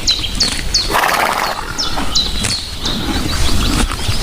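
Birds chirping: short, high notes that fall in pitch, repeated several times a second over a steady low rumble and hiss of outdoor ambience.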